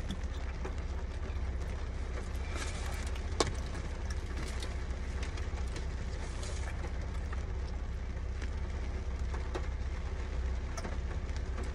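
Steady low rumble and hiss inside a car cabin, with a few faint handling clicks and one sharper click about three and a half seconds in.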